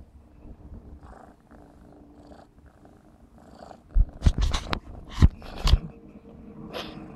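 Maine Coon kitten purring close to the microphone, with a short run of loud knocks and rubbing from about four seconds in as the kitten's fur presses against the microphone.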